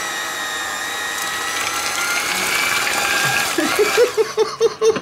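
Electric hand mixer running with whisk beaters in a stainless steel bowl of thick yeast dough, a steady motor whine that climbs slightly in pitch. Near the end a rapid run of short pulses, about five a second, comes in over it.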